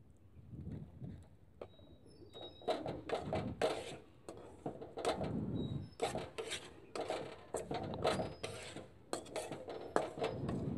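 Metal spoon scraping and stirring powdered mustard oil cake as it roasts in a frying pan, in short repeated strokes of about two to three a second from about three seconds in. The powder is kept moving constantly so it does not stick and burn.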